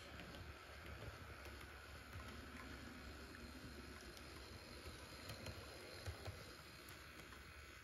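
Bachmann Daisy model diesel railcar running along the track: faint, steady running noise with a few light clicks.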